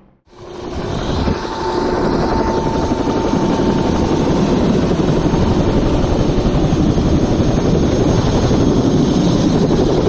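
Helicopter running on the ground with its rotor turning: a loud, steady engine sound with fast, even rotor pulsing, fading in from silence during the first second.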